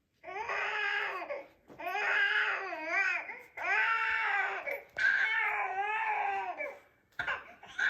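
Baby crying, played as a sound effect: a run of cries, each about a second long, with the pitch bending up and down and short breaths between them.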